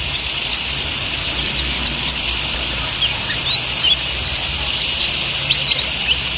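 Kolibri ninja sunbird calling: many short, quick high chirps, with a fast rattling trill about four seconds in that is the loudest part, over a steady hiss.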